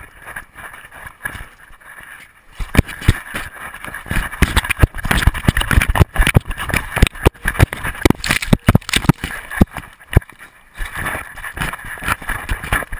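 Action camera carried by a running dog, knocking and rattling with the strides over rushing wind noise. It is fairly quiet for the first couple of seconds, gets loud and busy once the run starts, and eases off about two seconds before the end.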